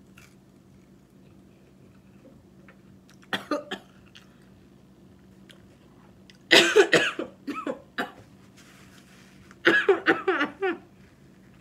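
A woman coughing in fits in the middle of eating: a short cough or two about three seconds in, then two louder, harder bouts, the last one into a napkin held over her nose and mouth.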